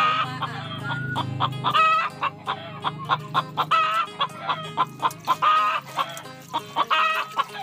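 Chickens clucking: a quick series of short, pitched calls repeating several times a second.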